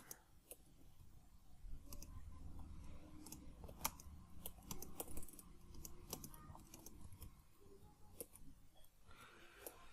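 Computer keyboard typing: light, irregular key clicks, faint, while code is entered.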